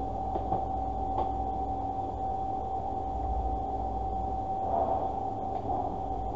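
Steady background hum and hiss with one constant mid-pitched whine, a few faint clicks near the start and once more near the end.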